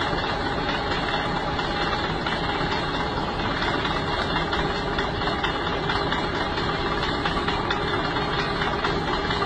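Caterpillar D4E crawler dozer's diesel engine running steadily as the machine creeps off the back of a truck bed.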